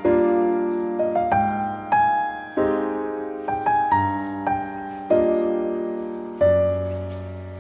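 Background piano music: slow notes and chords, each struck sharply and left to fade before the next.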